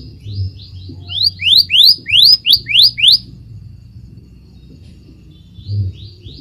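Scarlet minivet singing: a run of about ten rising, upslurred whistles, roughly three a second, that grow louder over about three seconds. After a pause of a couple of seconds, a new run begins near the end.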